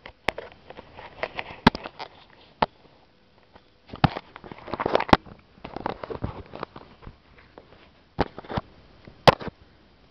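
A cat scuffling at play: sharp clicks and knocks about every second or two, with bursts of scratchy rustling in between, the busiest stretch about halfway through.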